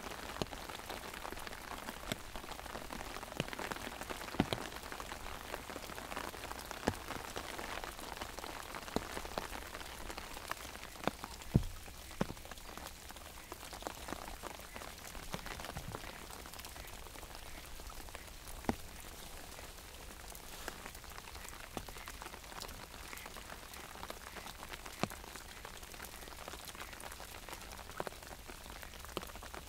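Steady rain pattering on an umbrella, with many single drops tapping sharply on the canopy and one heavier knock about a third of the way in. The rain eases slightly in the second half.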